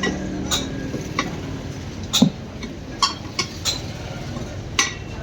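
Irregular sharp metallic clinks, about seven in five seconds, of tyre-fitting tools striking a motorcycle wheel rim as a tyre is worked onto it. One louder clink with a dull knock comes about two seconds in.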